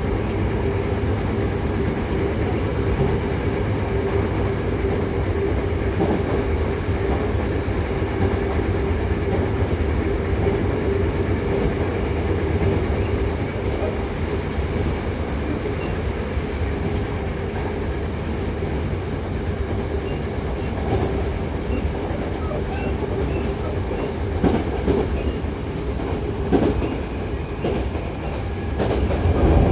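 Hankyu 8000 series electric commuter train running along the line: a steady rumble of wheels on rail with a constant hum. A few sharp clicks of wheels crossing rail joints come near the end, and the running grows louder in the last second.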